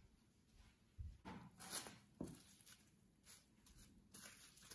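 Faint, scattered crinkling and rustling of plastic cling film as it is wrapped by hand around a ball of pastry dough, growing denser near the end.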